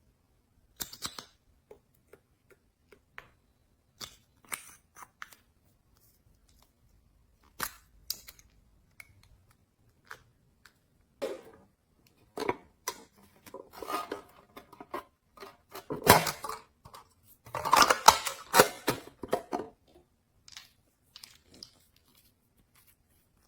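Slime being pressed, folded and stretched by hand, giving short sticky clicks and crackling pops with gaps of silence between. The sounds grow thicker and louder for several seconds in the second half, then thin out near the end.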